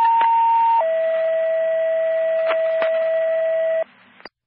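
Two-tone sequential paging alert on a fire dispatch radio channel, heard through a scanner: a higher tone held about a second, dropping to a lower tone held about three seconds, then cutting off, with radio hiss behind. It is the signal that sets off a fire station's pagers for a dispatch.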